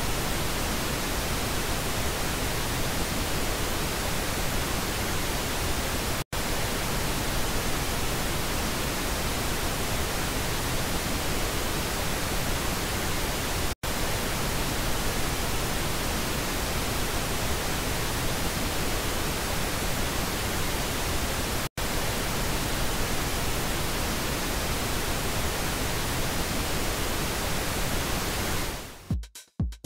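Pink noise speaker-test signal: a steady, even hiss alternating between the left and right stereo channels, broken by three very short gaps. It fades out at the very end.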